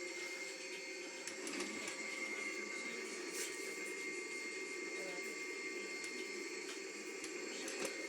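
Vacuum cleaner motor running steadily with a constant high whine.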